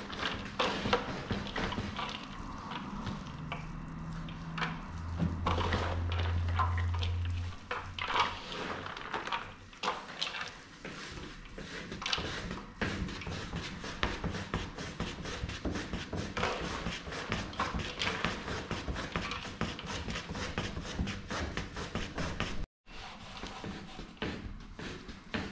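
Kitchen work sounds of food being prepared: a steady run of small taps, knocks and clatter, with a low hum for a couple of seconds about five seconds in. The sound drops out for an instant near the end.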